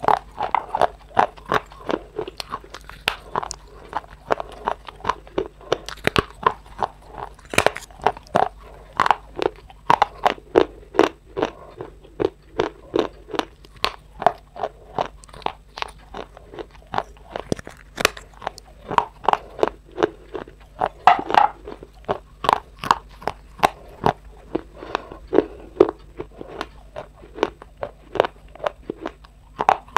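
A person biting and chewing something hard and brittle close to the microphone: a steady run of sharp, crisp crunches, about two or three a second.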